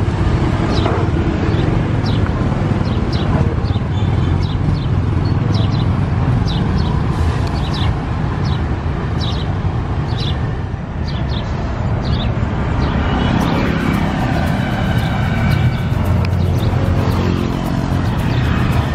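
Steady street traffic: the low rumble of passing cars and motorbikes, with short high-pitched chirps repeating over it.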